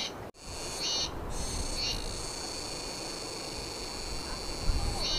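Steady high-pitched chorus of insects, cutting out briefly about a third of a second in, over low wind rumble on the microphone that grows louder near the end.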